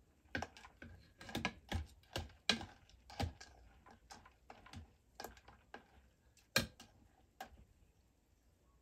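Metal ladle stirring small crabs in liquid inside a plastic jar: irregular clicks and taps as it knocks against the crab shells and the jar wall, one sharp knock about two-thirds of the way through, then thinning out near the end.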